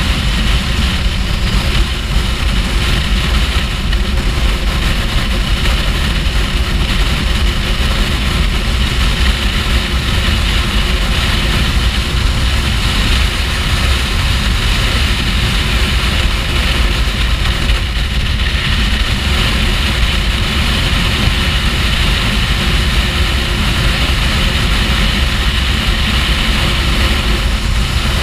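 Steady wind rush on the microphone of a Kawasaki Ninja H2 riding at motorway speed, with its supercharged inline-four engine running underneath at a constant cruise.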